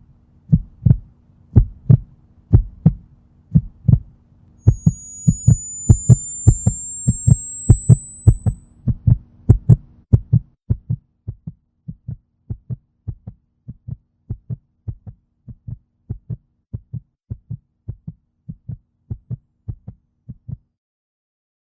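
Heartbeat sound effect, a steady run of low thuds, with a low hum beneath it for the first half. About five seconds in, a thin high whine comes in and rises slowly in pitch. Both stop suddenly about a second before the end.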